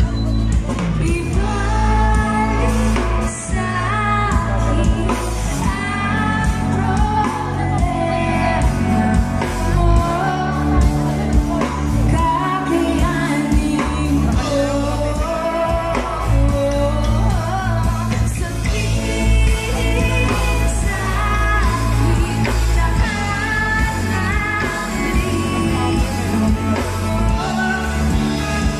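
Live band playing a song, a singer's voice carrying the melody over a steady bass.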